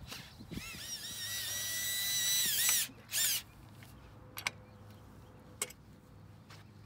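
Cordless drill/driver running at high speed for about two seconds, backing out a bolt from an umbrella pole's hinge. Its motor whine wavers as the trigger is feathered, holds steady, then winds down. A shorter second burst follows, and a couple of light clicks come later.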